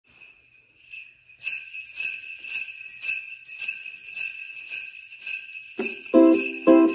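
A strap of sleigh bells on a wooden handle shaken in a steady beat, about two shakes a second, after a couple of soft shakes at the start. Near the end, ukulele chords strummed in time with the bells join in.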